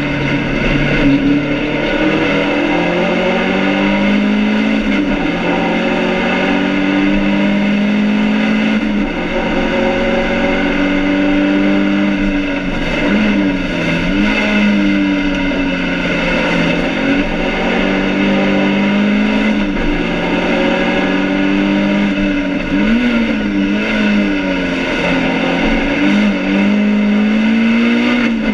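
BMW 2002 race car's four-cylinder engine running hard under load, heard from inside the stripped cabin. Its pitch climbs slowly along the straights and dips sharply and recovers a few times, near the middle and near the end.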